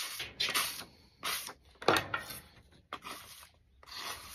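Dull kitchen knife pushed against the edge of a hand-held sheet of paper in about six short papery scrapes, the loudest about two seconds in, beginning with a sharp click. The blade is dull, so it catches and scrapes the paper.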